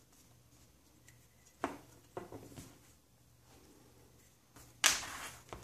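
Handling sounds of a homemade wooden trammel (wooden blocks on a dowel) being reset: light knocks about one and a half and two seconds in, then a louder, sharp scrape lasting about half a second near the end.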